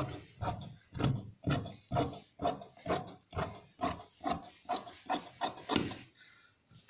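Tailor's shears cutting through fabric in a steady run of crunching snips, about two a second, stopping about six seconds in.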